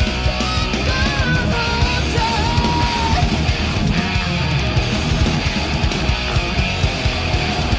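Power metal band playing live, with distorted electric guitars, bass and drums. A high melodic line glides and then holds a note in the first few seconds.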